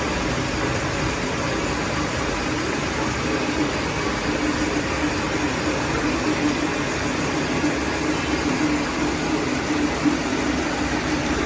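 Milling machine cutting the teeth of a large gear rack: a steady machining noise with a constant low hum.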